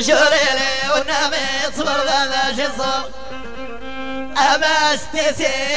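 A traditional Amazigh song from the Atlas, with chant-like singing over a violin. The melody bends and wavers in ornamented phrases; there is a short held stretch just past halfway, then a new phrase begins.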